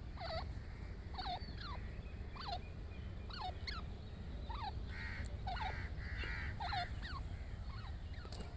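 Grey francolin calling: a run of short, sharp, falling call notes, one or two a second, over a steady low rumble.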